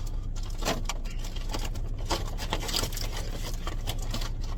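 Steady low engine hum inside a car, with scattered short crinkling and rustling noises from a helium balloon being handled.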